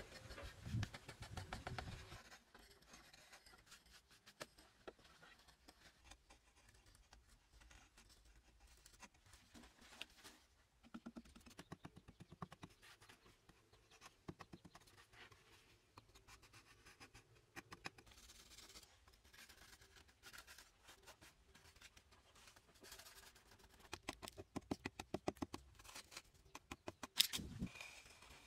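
Hand tools scraping and scratching into mud plaster walls, faint short strokes repeated over and over, coming thicker and louder near the end.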